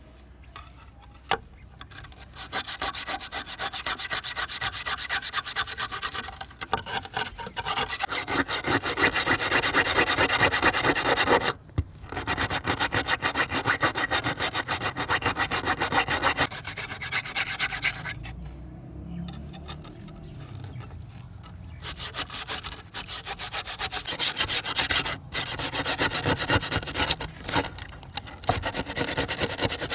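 Abrasive rubbing on a kitchen knife being restored: quick back-and-forth scraping strokes in long runs, easing off briefly about two-thirds of the way through and then starting again.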